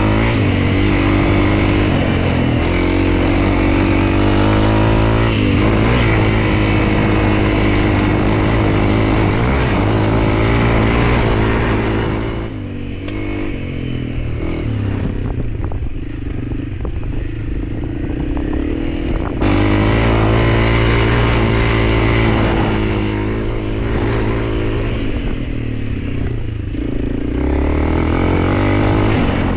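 Honda CRF300L's single-cylinder four-stroke engine running under load while riding off-road. The throttle eases off for several seconds in the middle and the engine quietens, then it picks up again.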